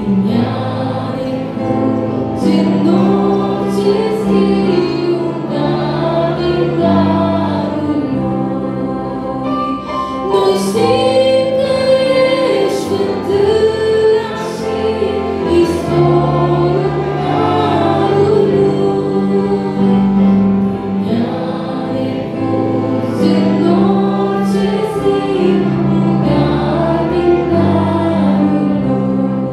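A young woman sings an old Romanian hymn solo into a microphone, her melody carried over a steady musical accompaniment of held low notes.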